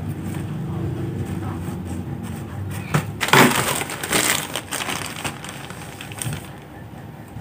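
Plastic mailer bag crinkling and rustling as it is handled, in a loud burst of crackles about three to four and a half seconds in, over a low rumble that fades away.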